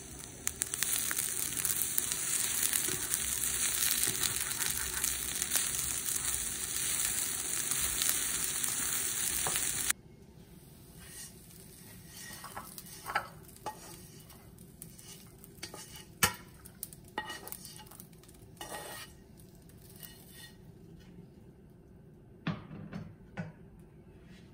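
Food sizzling in a frying pan, a steady hiss for about ten seconds that cuts off abruptly. After that come quieter scattered clicks and taps of utensils and dishes.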